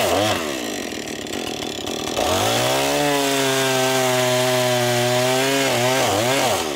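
Gasoline chainsaw cutting a birch log. The engine pitch drops away at the start and runs lower and quieter for about two seconds, then revs back up and holds a steady high pitch as it cuts, with two short dips in pitch near the end.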